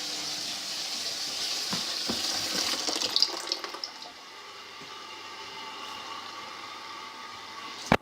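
Indesit washing machine taking in water at the start of a wash: a steady rushing hiss of water entering, which drops to a quieter level about four seconds in. A sharp click comes at the very end.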